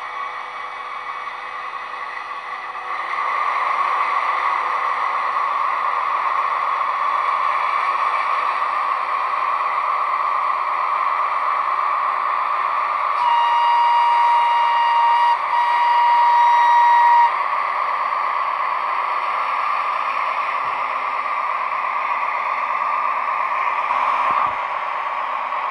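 ESU sound decoder in an H0 model FS D345 diesel locomotive, playing a recording of a real D345 diesel engine through the model's small speaker. The engine sound steps up about three seconds in and runs on steadily. Midway the locomotive horn sounds twice in quick succession, about two seconds each, on one steady pitch.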